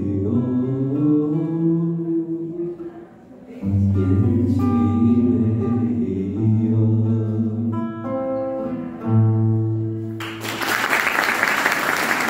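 A man sings the final lines of a Turkish folk song, accompanying himself on a classical guitar, with long held low notes. The song ends about ten and a half seconds in and audience applause breaks out.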